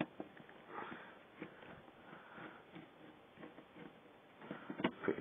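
Small screwdriver turning a screw out of a laptop's heatsink: faint scratching with light ticks, and a few sharper clicks near the end.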